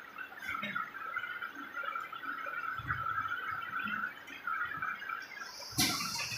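Cooling water pouring from the forming head of a PVC pipe coupler socketing machine and splashing into its water tank, a steady splash and trickle. A loud hiss starts suddenly near the end.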